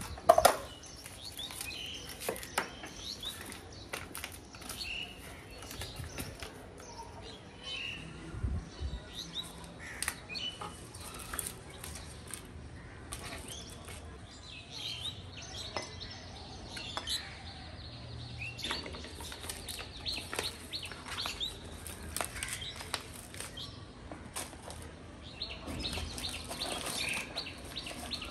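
Birds chirping now and then, over the clatter of kitchen work: a sharp knock about half a second in as a plastic food container is handled, then scattered light clicks and taps of a knife cutting butter on a wooden board.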